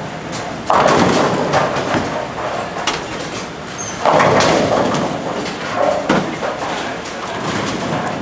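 Bowling alley: bowling pins crash twice, about a second in and about four seconds in, each crash clattering away over the steady rumble of the lanes.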